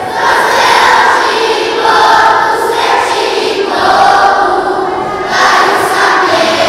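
A choir singing together in phrases about a second and a half long, with brief breaks between them.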